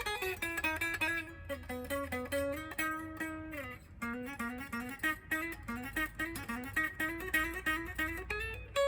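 Electric guitar lead from a Gibson 1959 Les Paul Standard reissue on its neck (front) pickup: a fast run of single notes, with one note held about three seconds in that then slides down in pitch, before the quick notes resume.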